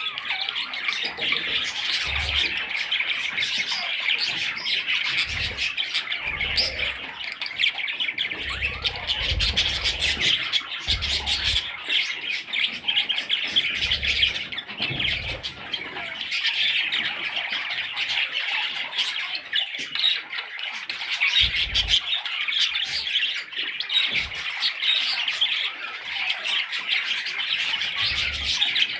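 Budgerigar chicks calling continuously in a dense, raspy chatter, with occasional short low thumps.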